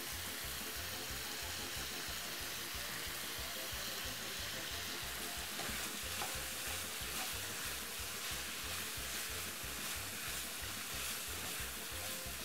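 Pork strips with sliced bell peppers and carrots sizzling steadily in a frying pan while being stirred with a wooden spoon.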